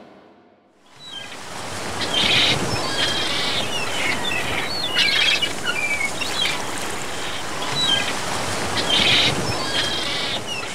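Birds chirping and calling repeatedly, with three louder, harsher calls, over a steady wash of surf. The sound fades in about a second in.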